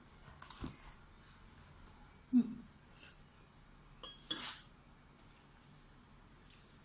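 Scattered small eating noises: faint clicks near the start, a short low thump a little over two seconds in, and a short breathy burst a couple of seconds later.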